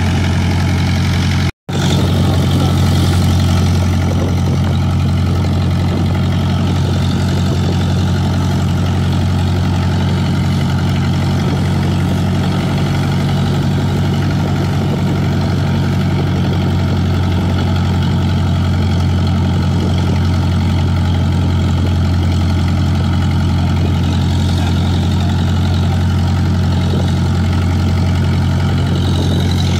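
Fishing boat's engine running steadily, a loud, even low hum, with a brief break in the sound about a second and a half in.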